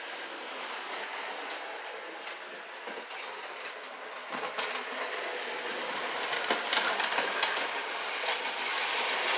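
American Flyer #561 toy-train locomotive running around the layout track: a steady electric motor and wheel rumble on the rails, with a few sharp clicks scattered through it. The speaker says the low cow catcher is touching the track periodically.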